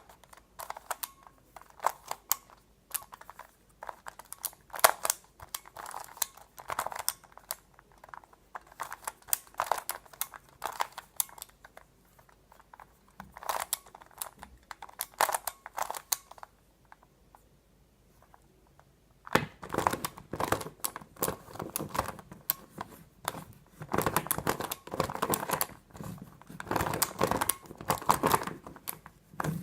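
Plastic Skewb Xtreme twisty puzzle being turned by hand during a solve: irregular clicks and rattles of the pieces turning. A short pause a little past halfway, then quicker, denser turning.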